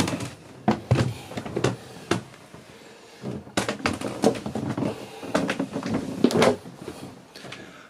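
Irregular knocks and clunks, a dozen or so short sharp strokes, in a small boat cabin.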